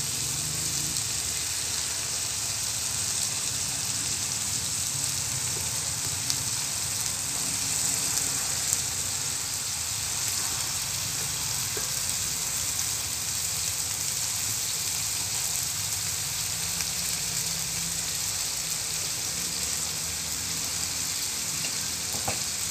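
Vegetables sizzling steadily in hot oil in a wok as they are tipped in, a pinakbet sauté of string beans, eggplant and bitter melon. A couple of faint ticks stand out partway through.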